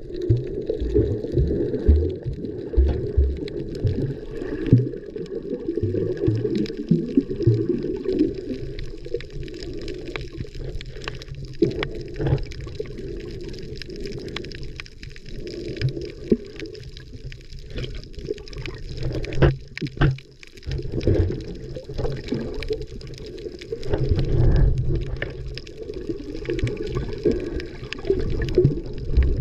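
Water sloshing and gurgling, muffled as heard by a camera held underwater, with a steady low rumble of moving water and a few short knocks.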